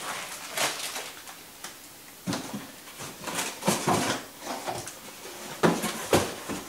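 Packing being handled: a coil of corrugated plastic hose is set down and a cardboard box is pulled at, giving irregular scrapes, rustles and light knocks, loudest near the end.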